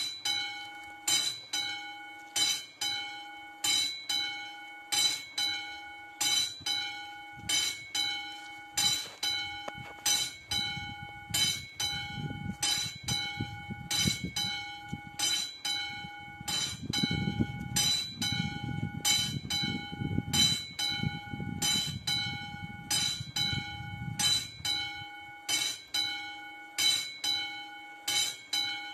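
Classic level-crossing warning bell ringing with evenly spaced strikes, sounding alongside the flashing red lights to warn of an approaching train. A low rumble swells under it from about ten seconds in and fades out near twenty-five seconds.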